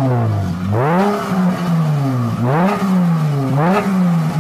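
A car engine being revved again and again: the pitch rises quickly with each blip of the throttle and then sinks slowly as the revs fall, about four times.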